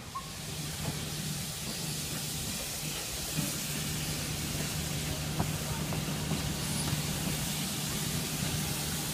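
Victorian Railways K-class steam locomotive K153 hissing steam steadily, with a steady low hum underneath.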